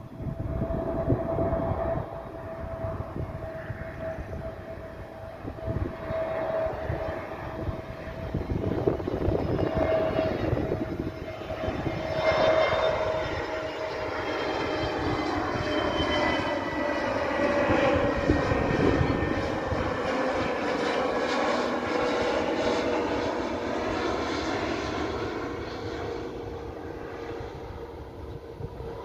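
Airbus A320neo (A320-251N) airliner on final approach, its CFM LEAP-1A turbofan engines whining with a steady tone that slowly drops in pitch as it passes. The sound swells about halfway through and fades toward the end.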